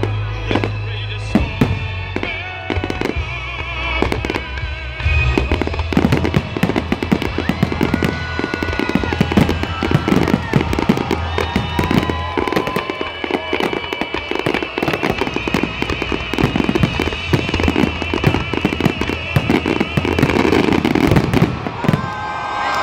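Fireworks finale: a dense, rapid barrage of aerial shell bangs, nearly continuous and with no break. Music plays underneath.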